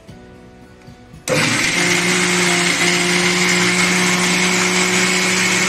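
Bajaj mixer grinder switched on about a second in, its motor then running with a steady high whine as it grinds wet mint chutney.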